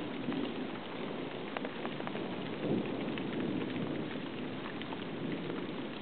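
Thunderstorm downpour: heavy rain hissing steadily with scattered drops tapping close by, and a low rumble of thunder swelling about halfway through.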